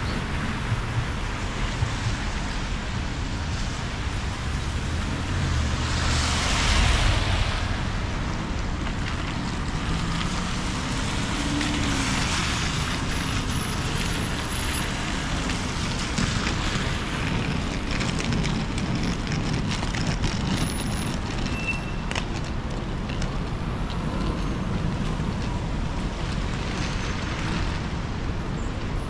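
Street traffic on rain-wet roads: a steady run of car and road noise with tyre hiss, and one vehicle passing louder about six or seven seconds in.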